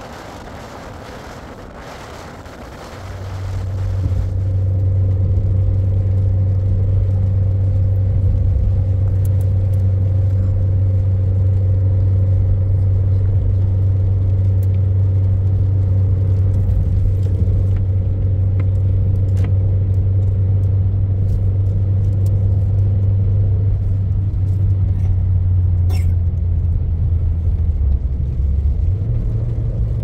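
An engine running at a steady speed, a loud low hum that comes in about three seconds in and shifts slightly in pitch near the end.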